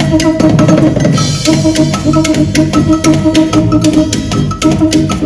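Live band music: quick, regular percussion strikes over a repeating bass line.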